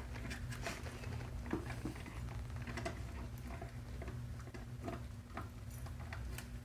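Dog gnawing on a chew bone: scattered soft clicks and scrapes of teeth on the bone, over a low steady hum.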